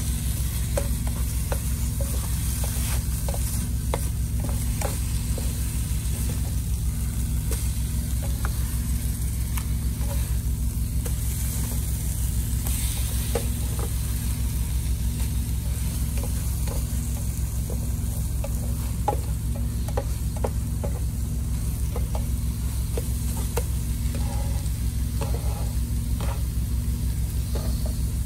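Scrambled eggs and chopped steak sizzling in a square nonstick pan while a plastic spatula stirs and scrapes through them, with many small scraping clicks. Under it runs a steady low hum.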